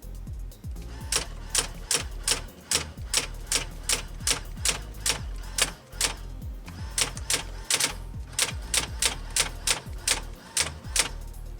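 Brother SX4000 electric typewriter typing, a quick run of sharp strikes about three to four a second, starting about a second in, with a brief pause around the middle. The machine is freshly cleaned and re-ribboned and working properly. Background music plays underneath.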